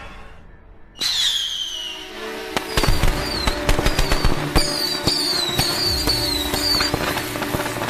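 Fireworks going off: several whistling fireworks sound at once about a second in, each whistle falling in pitch, followed by rapid crackling bangs and more falling whistles.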